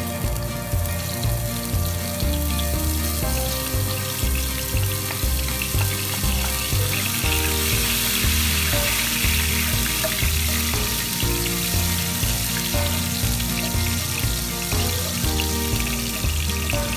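Chopped garlic sizzling and frying in hot oil in a pan, the sizzle starting as the garlic goes in and growing strongest midway, with background music playing throughout.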